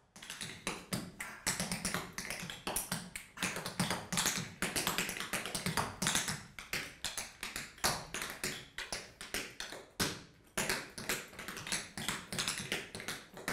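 Tap shoes striking a wooden floor: a tap dancer's rapid, uneven run of taps, with a brief pause about ten seconds in.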